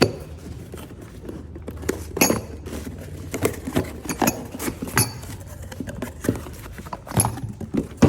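Loose steel T-bolts for the rear axle retainers clinking against each other and against metal as they are handled, with irregular clicks and taps spread through.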